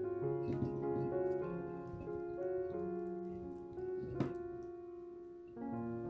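Background piano music: a slow run of held notes.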